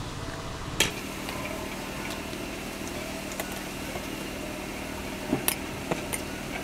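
Metal spoon and fork clinking and scraping against a plate of rice: one sharp clink about a second in and a few more clinks near the end, over a steady low hum.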